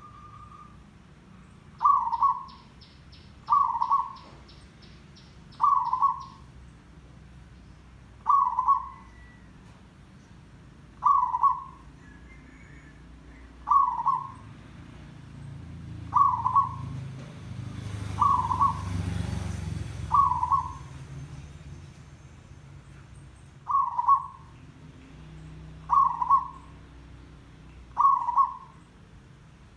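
Zebra dove calling: a short cooing phrase repeated about a dozen times, one every two seconds or so.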